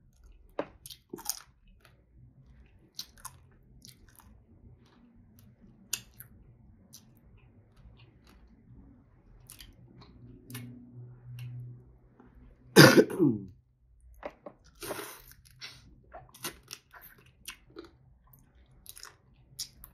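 Close-miked eating sounds: wet chewing with small mouth clicks and smacks as soft crab and fish meat with plantain fufu is eaten. About 13 seconds in there is one brief loud cough-like throat sound.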